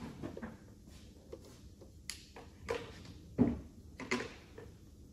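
A few scattered clicks and knocks from handling a hot-staple plastic welder and the plastic part at the bench. The loudest is a knock about three and a half seconds in.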